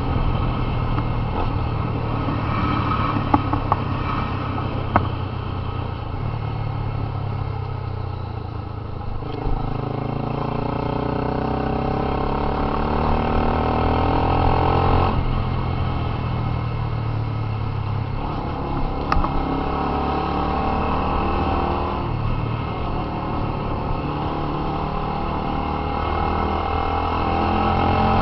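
Honda CB 300's single-cylinder engine through an aftermarket Fortuna mini sport exhaust, ridden and pulling through the gears: the exhaust note climbs steadily in pitch, drops sharply at a gear change about halfway through, then climbs and shifts again.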